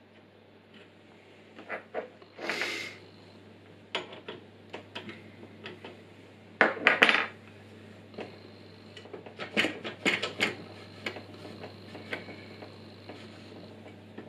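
Metal clinks, knocks and scrapes from hand-handling a bench pillar drill: a bit being fitted in the chuck and the steel machine vise being shifted on the drill table. There is a scrape about two and a half seconds in, and the loudest clatter comes about seven seconds in.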